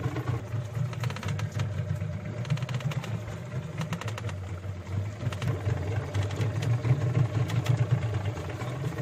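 Fishing boat's engine running at idle with a steady low hum, with scattered light clicks and knocks on deck.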